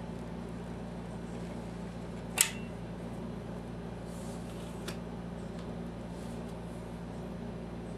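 Steady low hum with one sharp click about two and a half seconds in, and a brief soft rustle ending in a fainter click near five seconds, from hand work on a caulked crown molding seam.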